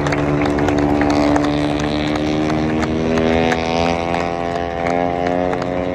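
Several Moto3 race bikes' 250cc single-cylinder four-stroke engines screaming at high revs as they pass through a corner, the pitch climbing about halfway through as they accelerate.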